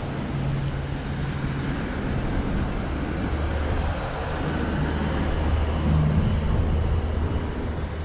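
Road traffic with a vehicle engine running, a low steady hum; a deeper engine note takes over about three seconds in.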